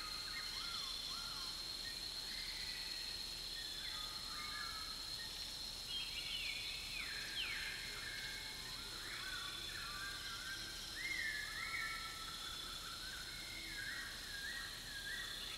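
Birds calling in many short whistled notes, some gliding up or down, over a steady high insect drone. The calls are loudest about six and eleven seconds in.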